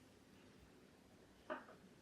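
Near silence, with one small click about one and a half seconds in.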